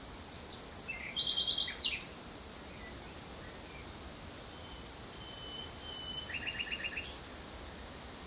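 Common nightingale singing: two short song phrases, each a rapid run of repeated notes, the second led in by a thin drawn-out whistle, over a steady background hiss.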